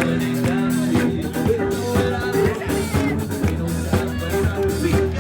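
Music with a steady drum beat and sustained instrumental notes.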